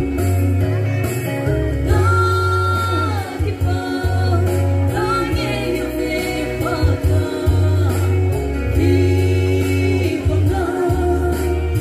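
A woman singing a gospel song live into a handheld microphone, amplified over instrumental accompaniment with a steady bass line and a regular beat.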